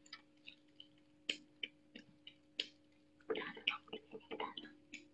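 A young otter chewing a raw catfish: scattered sharp crunching clicks of teeth on flesh and bone, with a denser run of wet chewing about three seconds in.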